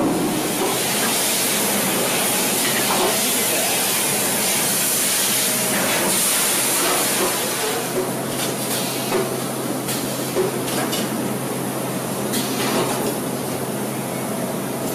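Steel shot pouring through a vibrating sorting screen, a steady hiss over a low machine hum. About eight seconds in, the hiss eases and scattered clicks and clunks of a bag-palletizing robot come through.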